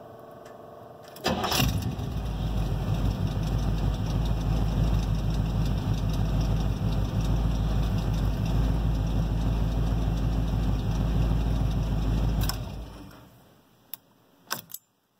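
A 1978 GMC Suburban engine is started with the key and catches at once, about a second in. It runs steadily for roughly eleven seconds, is switched off and winds down, and a few clicks of the key in the ignition follow near the end.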